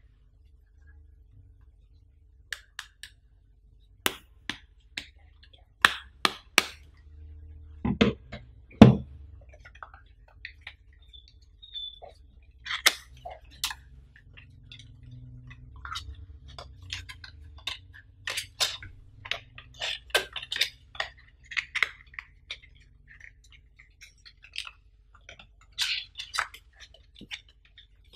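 Handling of a smartphone and its cardboard box packaging: scattered clicks, taps and crinkles of card and paper, with two heavier thumps about eight and nine seconds in.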